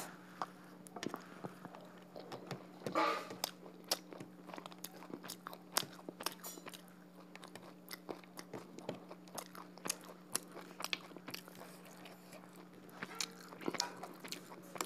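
Close-up eating sounds of a person chewing duck curry and rice: many small irregular wet clicks and crunches from the mouth, over a faint steady hum.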